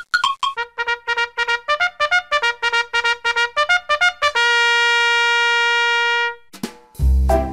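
Intro music: a run of quick, short staccato notes, then one long held note. Near the end a new, louder section comes in with a heavy bass beat.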